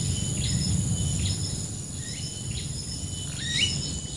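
Rural outdoor ambience: a steady, high-pitched insect drone, with an animal call repeating about every two-thirds of a second, each one rising in pitch and then holding a level note. A low rumble runs underneath.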